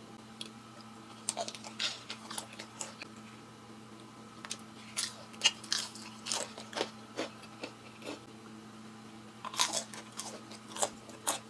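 Crisp dry-fried oyster mushroom being bitten and chewed: irregular crunches in three bursts, with pauses between, over a faint steady hum.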